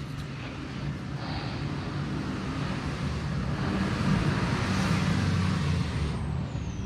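A motor vehicle driving past: its engine hum and road noise build to a peak about four to five seconds in, then fade, with a high whine dropping in pitch near the end.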